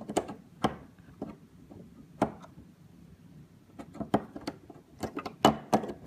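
Clicks and taps of a glass switch cover being fitted and pressed onto the plastic base of a smart wall switch: a few single clicks, a pause in the middle, then a quick run of sharper clicks near the end as it snaps into place.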